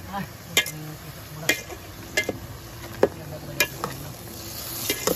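A metal spoon stirring chicken pieces in an aluminium cooking pot, clinking sharply against the pot about seven times at an uneven pace, while the chicken sizzles faintly as it renders its fat.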